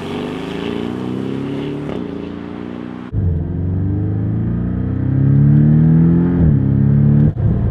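Porsche 718 Boxster S's 2.5-litre turbocharged flat-four accelerating hard through the gears. Its pitch climbs and drops at each upshift, about two seconds in and again near the end. About three seconds in, the sound changes from the car heard from outside as it drives past to a louder engine heard inside the cabin.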